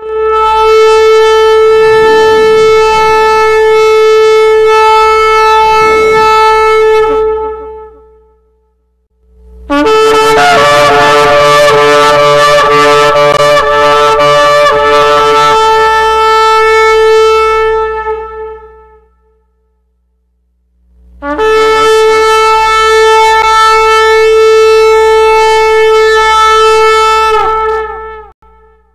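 Shofar sounded in three long blasts of about eight seconds each, separated by short silences. The middle blast is rougher and wavers in pitch.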